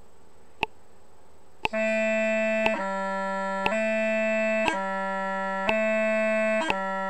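Scottish bagpipe practice chanter playing a gracenote exercise in time with a metronome at 60 beats a minute. Metronome clicks come once a second until the chanter starts, about two seconds in. The chanter then alternates between two notes, changing about once a second, from A to B, and each change is marked by a quick high E gracenote blip.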